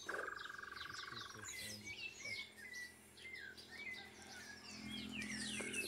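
Several wild birds calling with many short, quick chirps that slide downward in pitch. Under them, for about the first second and a half, there is a steady buzzing trill that then stops.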